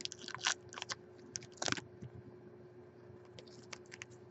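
Trading cards and a booster pack being handled by hand: light, irregular clicks and rustles, busiest in the first two seconds and sparser after.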